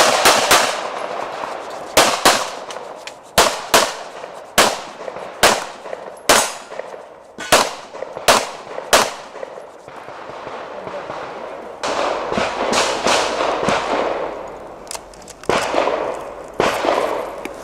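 Handgun fire in quick strings of shots, many in pairs about a third of a second apart, typical of practical-shooting double taps. There is a pause of a few seconds after about nine seconds, then more rapid strings.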